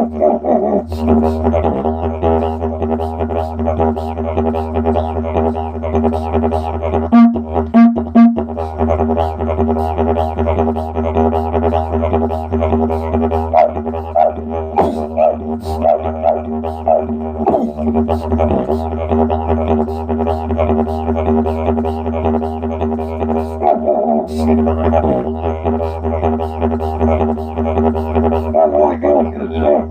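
Didgeridoo playing a continuous low drone, its overtones shifting with the player's mouth and voice in a steady rhythmic pattern. About a quarter of the way in, the drone breaks off twice for a few short, louder, higher-pitched notes.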